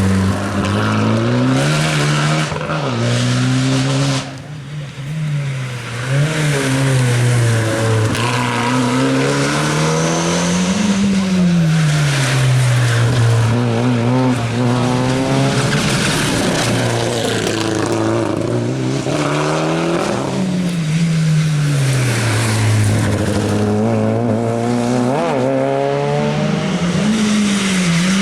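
Rally car engine revving up and falling back again and again as it accelerates and brakes through the stage, with tyres squealing. The level drops briefly about four seconds in.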